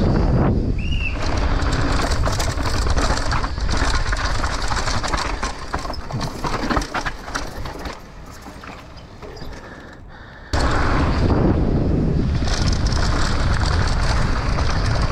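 Wind rushing over the camera mic on a downhill mountain bike, with the tyres rolling over dry, rough dirt and the bike rattling. The noise drops away for a couple of seconds about eight seconds in and comes back suddenly about ten and a half seconds in.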